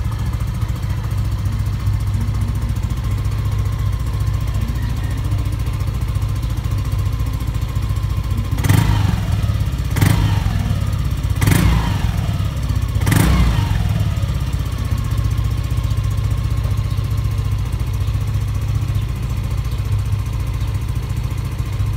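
Yamaha Aerox 155 scooter's single-cylinder engine idling through a Daeng Sai4 aftermarket exhaust pipe. About halfway through, the throttle is blipped four times, about a second and a half apart, and the revs fall back to idle after each.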